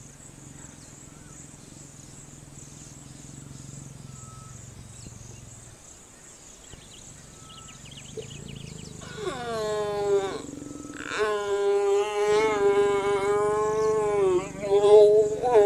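A mating pair of lions growling and snarling in long, drawn-out, wavering calls, loud and in several bouts from about nine seconds in, after a quiet start.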